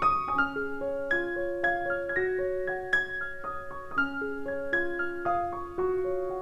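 Background piano music: a gentle melody of struck notes, several a second, each ringing on.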